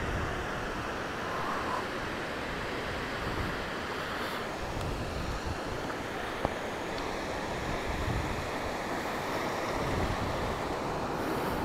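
Small waves washing steadily onto a flat, shallow sandy beach, with wind buffeting the microphone.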